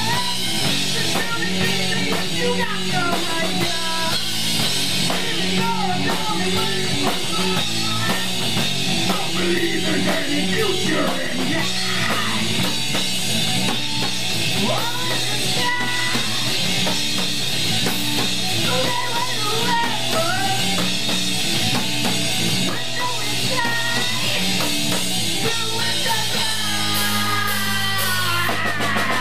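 Live rock band playing loud on electric guitar, bass guitar and drum kit, with a singer's vocals over the top.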